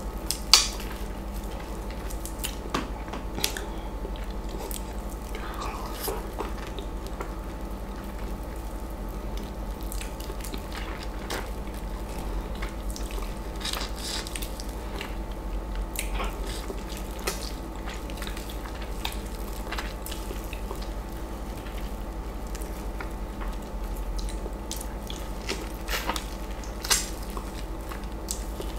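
Close-miked messy eating of a juicy East Indian mango: wet biting, squishing and chewing of the ripe flesh, with scattered sharp wet clicks, the loudest about half a second in and near the end.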